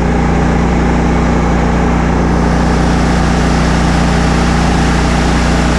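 Toro Grandstand Multiforce stand-on machine's engine running at a steady speed, an even low hum with no revving.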